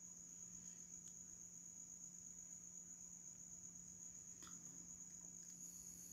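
Near silence: faint room tone with a steady high-pitched whine and a low hum, and a faint tick about four and a half seconds in.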